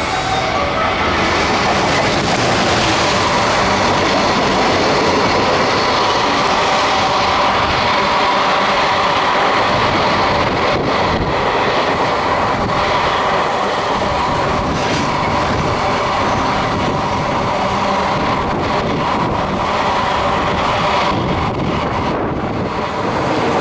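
An EF210 electric locomotive passes without stopping, followed by a long train of container wagons rolling by. Their wheels make a steady, loud rumble and rattle on the rails.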